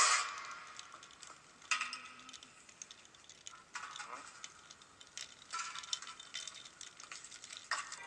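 Iced coffee being stirred in a tall glass: ice cubes clink and rattle against the glass, with about five sharper clinks roughly two seconds apart, each ringing briefly.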